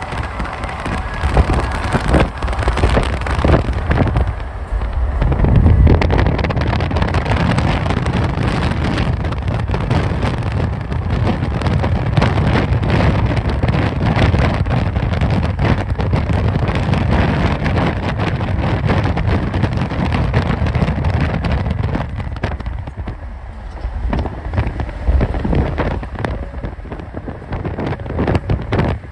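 Mercedes-Benz E63 AMG (W212) naturally aspirated V8 running at highway speed under a steady rush of wind and road noise. The low engine sound swells about five seconds in and eases off briefly a little past twenty seconds.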